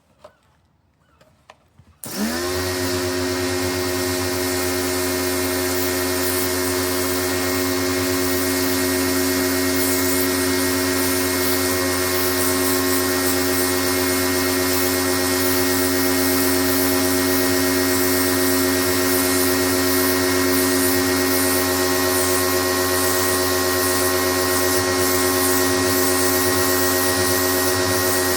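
Pro-Kleen 1600 electric pressure washer switched on about two seconds in, its motor and pump then running steadily with a loud hum and hiss. A few faint clicks come before it starts.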